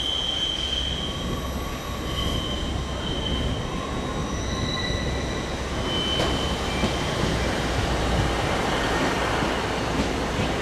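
Wheels of a Northern diesel multiple unit squealing on the curved track and pointwork as it runs in slowly, a series of high squeals at several pitches over a low engine rumble. From about six seconds in the wheel and engine noise grows louder as the train passes close by.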